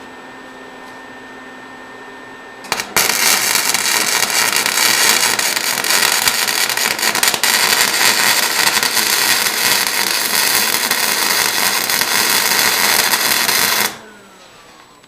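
A Lincoln 140 MIG welder's arc crackling steadily on galvanized steel. It starts about three seconds in after a low steady hum, runs for about eleven seconds, and cuts off suddenly when the circuit breaker trips: the welder is drawing too much current at its settings.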